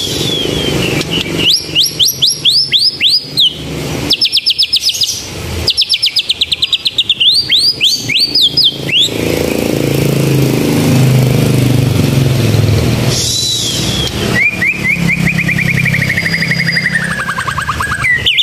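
White-rumped shama singing in bursts of fast, canary-like trills of rapidly repeated high notes, with a long trill sliding down in pitch near the end. A low rumble of road traffic runs underneath in the middle.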